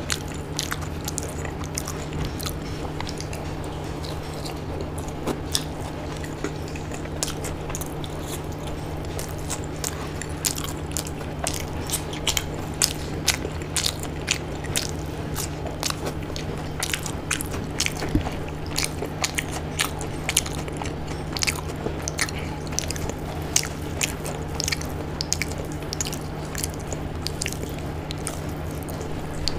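Close-miked eating sounds: chewing and wet mouth clicks and lip smacks over a mouthful of khichdi, along with the squish of fingers mixing the soft rice-and-lentil khichdi on the plate. The clicks come thick and fast, busier in the second half, over a steady low hum.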